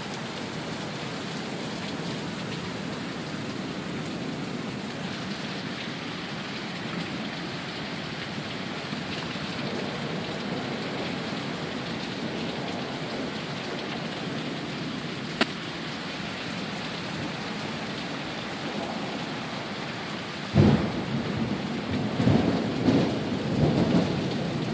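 Torrential downpour: heavy rain pouring steadily. A single sharp tick sounds about halfway through. About twenty seconds in, a sudden loud clap of thunder breaks in and rumbles on in uneven swells.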